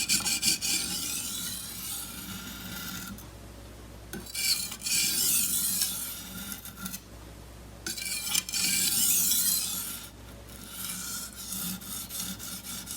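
Chef's knife edge being stroked across a coarse Washita (Arkansas novaculite) whetstone, a rasping scrape in several runs of strokes with short breaks between them. This is the coarse-stone stage of raising the initial burr on a dull edge.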